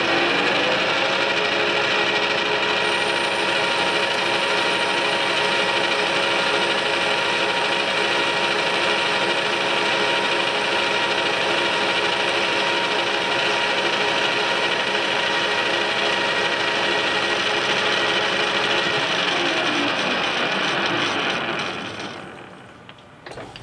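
Metal lathe taking a rough boring pass inside a metal tube: the spindle reaches full speed about a second in and runs steadily with the hiss of the cut. About 19 seconds in the spindle winds down, and the sound drops away about three seconds later.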